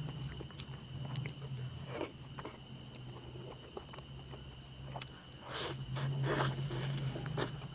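Close-miked mukbang eating sounds: saucy roast meat torn apart by gloved hands and chewed, in irregular wet crackly bursts, the loudest between about five and a half and seven and a half seconds in, over a steady low hum.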